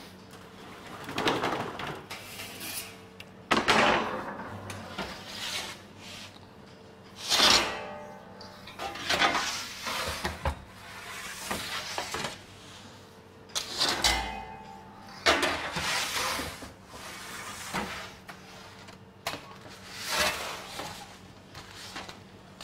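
Aluminium baker's peel scraping and sliding across a deck oven's floor as baguettes are worked in and out, in repeated scrapes a couple of seconds apart with a few sharper metallic clanks. A faint steady hum runs underneath.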